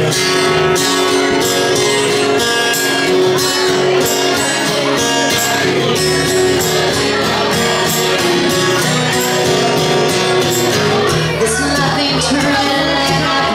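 A band playing live music loudly, with a steady drum and cymbal beat under sustained instrument tones.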